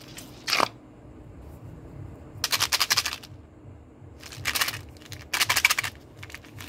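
Small candy-coated chocolates rattling inside a little plastic bottle as it is shaken, in three short bursts of rapid clicking.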